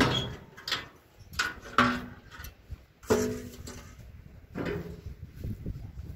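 Stones dropped one after another into the metal cargo bed of a small patpat farm truck: about six clanks, the louder ones leaving a short metallic ring.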